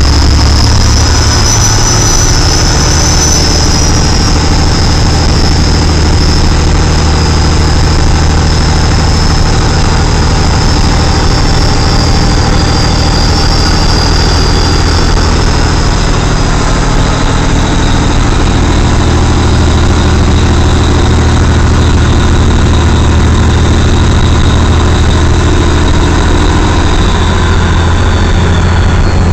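Semi truck's diesel engine running steadily under way, heard from inside the cab, with a thin high whine that slowly falls in pitch.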